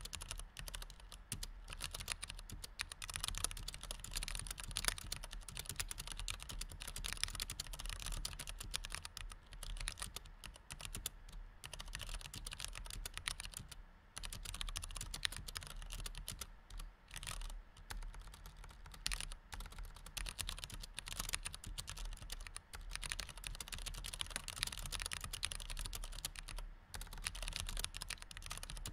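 Continuous fast typing on a white low-profile chiclet computer keyboard: a dense stream of key clicks, broken by a few short pauses, the clearest about 14 seconds in.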